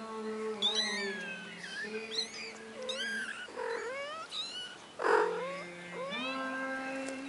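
One-month-old kittens mewing over and over: short, high-pitched calls that rise and fall, several overlapping. About five seconds in there is a louder, rougher burst.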